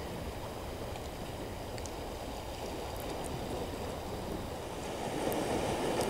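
Small sea waves washing against a rocky shore and concrete breakwater blocks, a steady wash of surf that swells a little near the end.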